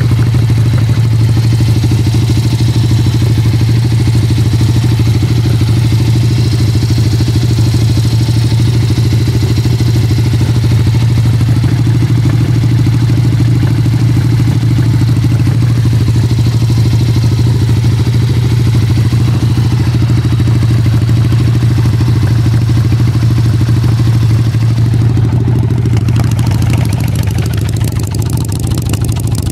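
1985 Harley-Davidson Ironhead Sportster's air-cooled 45-degree V-twin running steadily at a fast idle, heard close to the cylinders and then at the exhaust pipe. The owner's complaint is a rear cylinder that pops and backfires and runs cooler than the front.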